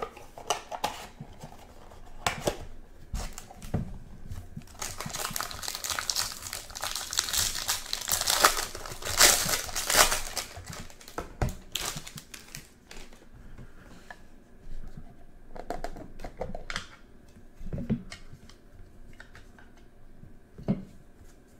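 Wrapper of a baseball trading card pack being torn open and crinkled, densest between about five and ten seconds in. Softer clicks and rustles follow as the stack of cards is handled.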